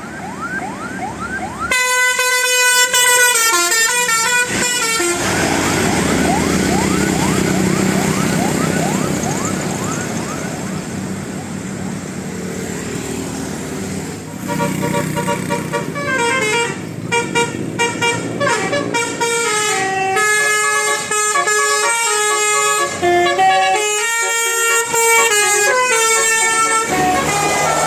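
Bus 'telolet' musical air horn playing a melody of quickly changing notes: a short phrase about two seconds in, then a longer tune from about halfway through to the end, with vehicle noise in between.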